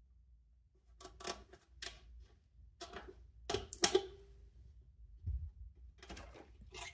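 Pliers clicking and scraping on a fuel-line hose clamp while the old rubber fuel line is worked off a motorcycle's fuel petcock: a scatter of sharp clicks, one with a short metallic ring about four seconds in, and a dull thud a little after five seconds.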